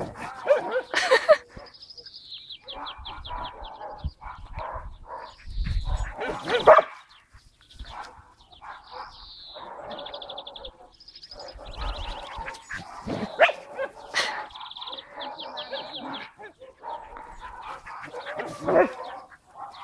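Border collies barking and yipping in short, irregular bursts as they play-chase each other.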